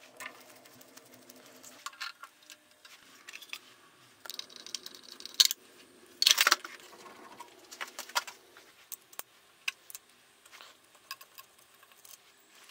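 Hand tools and metal parts clicking and clinking irregularly as fittings are unbolted and removed from a milling machine's head casting, with a few louder sharp metal clinks around the middle.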